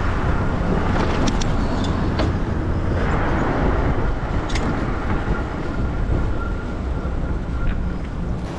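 Wind buffeting the microphone of a chest-mounted camera on a moving electric bike, over road and city traffic noise, with a few light clicks.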